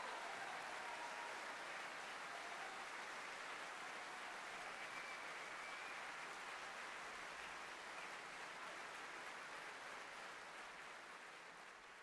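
Concert audience applauding, a steady wash of clapping that slowly fades away toward the end.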